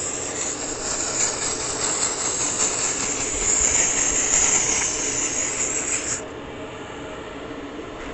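Dry-steam cleaner gun blowing a jet of steam onto a car's paint, a loud steady hiss that cuts off sharply about six seconds in. A quieter steady noise carries on after it.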